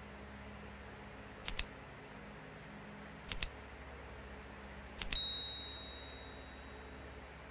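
Subscribe-button animation sound effect: two quick double mouse clicks about two seconds apart, then a click and a single bright bell ding that rings out over about a second and a half, over a low steady hum.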